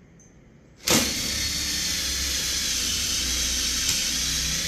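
Cordless drill starting abruptly about a second in and running steadily at speed, turning a Speed Out screw extractor bit to back out a stuck screw from a folding stool's frame.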